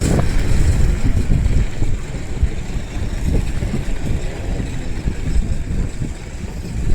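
Wind buffeting the microphone: a heavy, gusting low rumble over a steady rushing hiss, starting abruptly.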